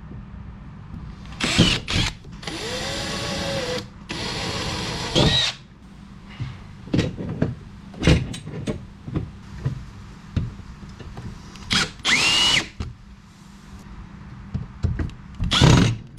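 Power drill driving stainless steel screws into a mount: about five short runs of the motor, its whine gliding up and down as the trigger is squeezed and released, with clicks and knocks between runs.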